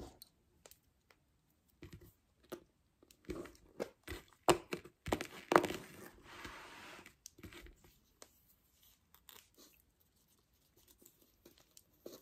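Bobbin-lace bobbins clicking against each other as pairs are crossed and twisted, in irregular sharp clacks, with a short soft rustle about six seconds in.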